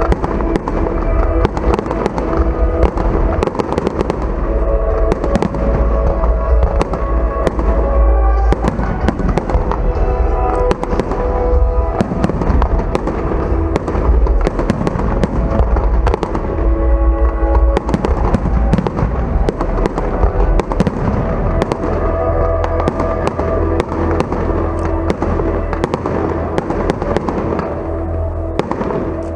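Fireworks display: rapid, continuous bangs and crackles of bursting shells, over music with long held notes and heavy bass.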